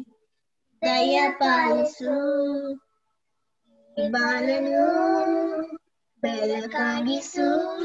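A young girl singing solo without accompaniment, in three phrases with short breaks between them. The sound comes over a video call, and the audio cuts to dead silence in each break.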